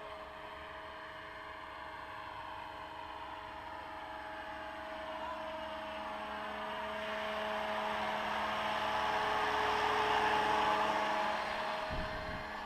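Scale AS-350 radio-controlled helicopter, 700 size, flying, with a steady whine from its rotors and drive. The sound grows louder as it comes closer, is loudest about ten seconds in as it passes, then fades.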